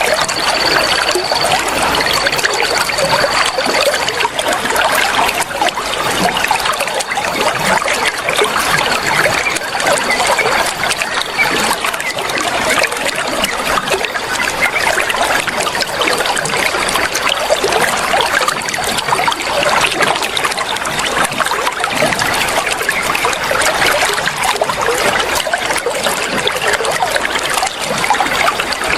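Running water trickling and splashing steadily, a continuous babbling flow. A faint, thin high tone comes and goes in the background.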